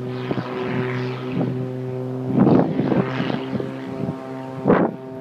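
Propeller aircraft engine droning at a steady pitch, with two loud gusts of wind noise on the microphone about two and a half and four and a half seconds in.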